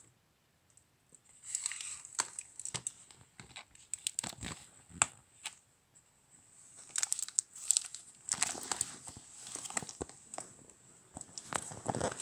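Irregular rustling and crinkling with sharp clicks, coming in several bursts with a short lull around the middle, over a faint steady high-pitched whine.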